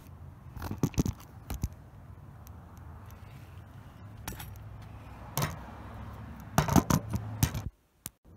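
Handling noise: scattered light clicks, knocks and scrapes over a low steady hum, with busier clusters about a second in, around the middle and near the end. The sound drops out abruptly near the end.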